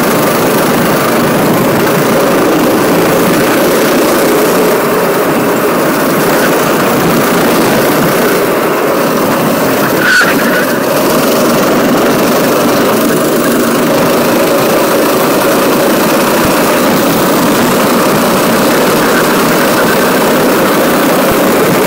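Go-kart engine running hard at racing speed, heard from on board the kart, loud and steady throughout, with one short knock about halfway through.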